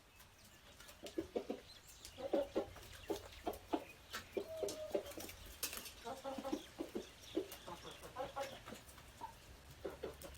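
Chickens clucking: short, repeated clucks in irregular bursts starting about a second in, with a few sharp clicks among them.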